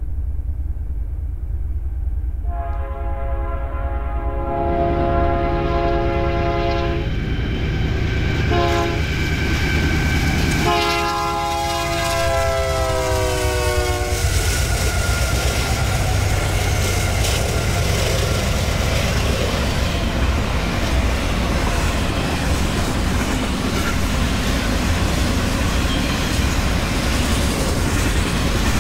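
Union Pacific diesel locomotives leading a double-stack container train sound their horn: a long blast, a short one, then another long one whose pitch drops as the locomotives pass. The locomotives and then the stack cars roll by with steady wheel noise and clatter on the rails.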